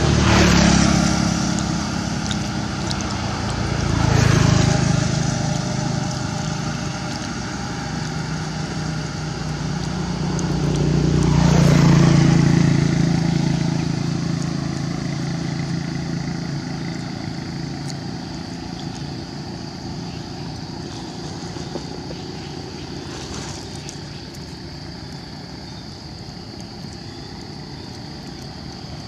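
Motorbikes passing on a road, one after another: three pass-bys, each swelling and fading, at the start, about four seconds in and about twelve seconds in.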